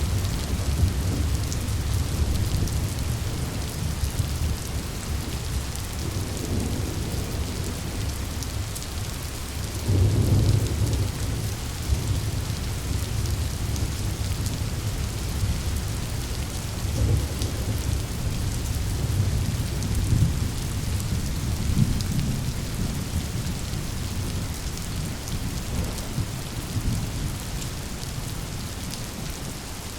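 A rainstorm: steady heavy rain hissing, with rolling thunder. A low rumble swells about a third of the way in, more rumbles follow about two-thirds through, and the storm eases off toward the end.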